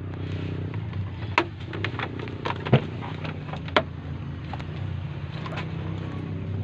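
Truck engine idling steadily, with several sharp clicks and knocks over it.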